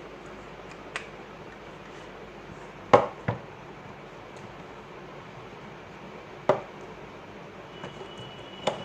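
A handful of separate sharp knocks and clicks as the side handle is worked onto the body of a hammer drill, the loudest about three seconds in with a second knock just after it, another about six and a half seconds in and one near the end.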